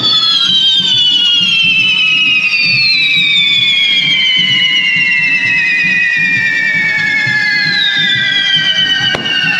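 Several whistling firework fountains on poles screeching at once, each a high whistle that slowly falls in pitch as it burns, with fresh whistles starting about two and a half seconds and eight seconds in. A low rumbling spray of sparks runs underneath, and there is one sharp crack near the end.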